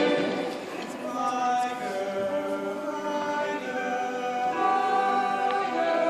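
Show choir singing sustained chords in several-part harmony, the held notes shifting together about once a second.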